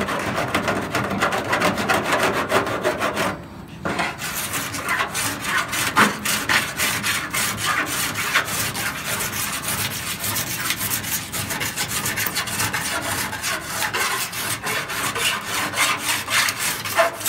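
Lead filler on a car body panel being worked down by hand with a file, rapid back-and-forth scraping strokes with a brief pause a little over three seconds in.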